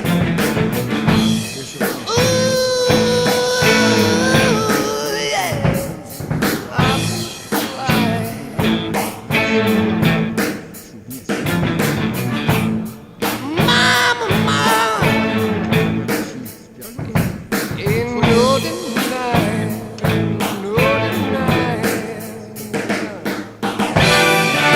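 Rock music with a drum kit and held, bending melody lines.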